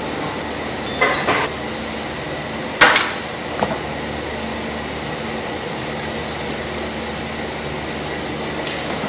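Steady rushing kitchen background noise, with a few short knocks about one second in and again about three seconds in.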